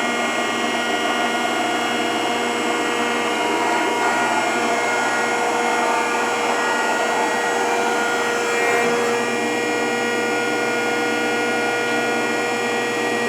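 Rockford 36-inch hydraulic planer running, its hydraulic pump and drive motor giving a steady whine of several held tones over a rushing hum.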